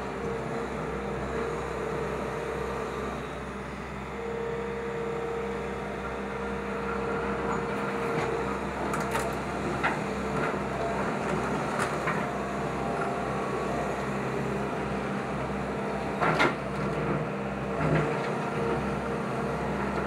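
Excavator engine running steadily while its bucket and thumb scrape and knock against wood and sheet-metal demolition debris, with two louder knocks near the end.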